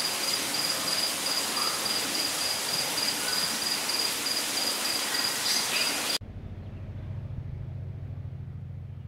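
Crickets chirping: one high, evenly pulsing trill over a dense steady insect chorus. About six seconds in it cuts off abruptly to a quieter steady low hum.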